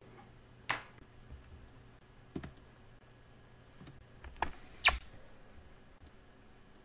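A few quiet, separate clicks and taps of a ballpoint pen and hand on a paper worksheet lying on a desk, spread over several seconds, the sharpest about a second in and near the five-second mark, over faint room hum.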